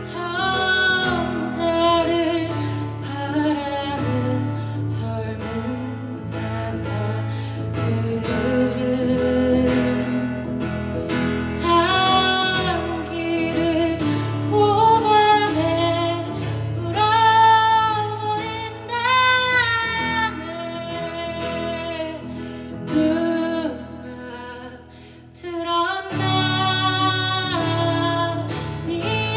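A live band plays a song: a female voice sings the melody over strummed acoustic guitar and bass. Near the end the music drops away briefly, then the full band comes back in.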